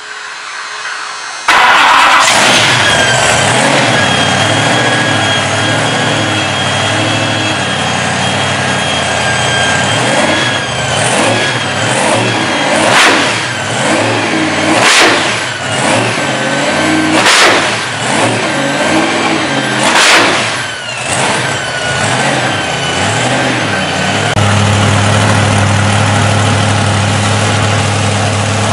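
Twin supercharged Hemi V8 engines of a hot rod fire up about a second and a half in, then idle with a steady high whine. The throttle is blipped in about five sharp revs. Near the end another engine idles steadily with a deeper note.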